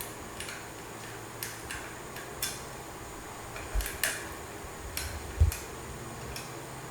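Scattered small metallic clicks and taps from handling the ceiling fan's small screws and metal light-kit parts, with a couple of dull thumps, the loudest a little after five seconds in, over a faint steady hum.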